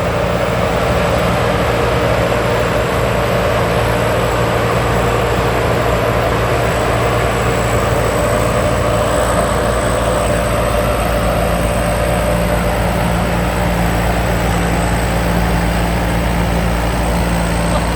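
Rice combine harvester running steadily: an even engine drone with a faint constant high whine.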